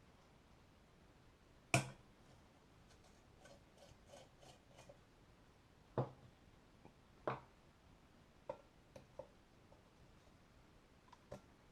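Metal parts of a Sievert blowtorch knocking and clicking as it is taken apart by hand: scattered sharp knocks, the loudest about two seconds in, with a quick run of light clicks a little later.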